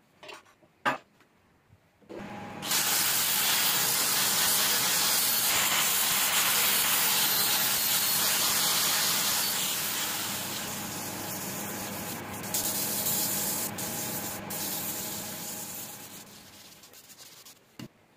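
Sandpaper held by hand against a jackfruit-wood vase spinning on a wood lathe: a loud, even hiss that starts about two seconds in, eases off, and fades out near the end, with a faint steady hum from the lathe beneath. Two light clicks come just before it.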